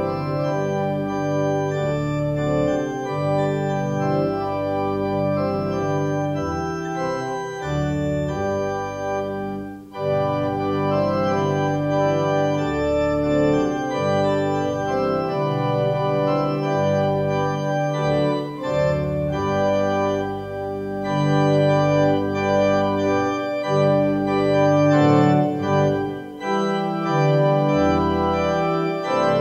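Organ playing the closing postlude: sustained full chords that change every second or so over a moving bass line, with a brief break between phrases about ten seconds in.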